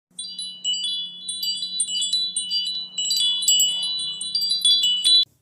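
Wind chimes tinkling: many quick, overlapping strikes of high ringing tones over a faint steady hum, cutting off suddenly near the end.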